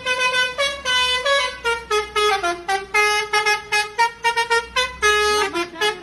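A lorry's multi-tone telolet air horn playing a quick tune: a run of short notes jumping in pitch, several a second, with a few longer held notes near the end.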